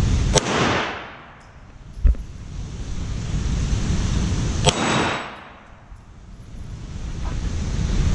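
Two pistol shots about four seconds apart, each followed by the steady background rush dropping away and swelling back over a couple of seconds. A softer knock comes about two seconds in.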